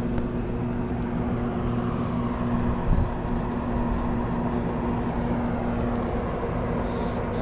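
Steady low engine drone of a large boat passing on the river, humming at several evenly spaced pitches over a constant rumble, with a single knock about three seconds in.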